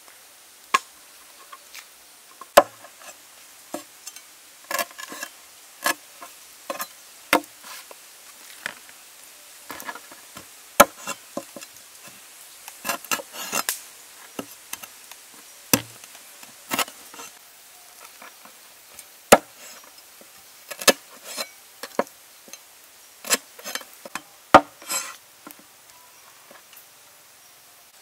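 Cleaver chopping the claw tips off raw chicken feet on a wooden board: sharp, irregular knocks, some single and some in quick clusters, thinning out near the end.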